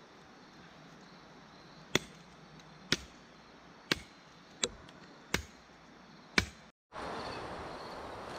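Six sharp knocks, roughly one a second, over a faint hiss. A louder steady hiss starts abruptly near the end.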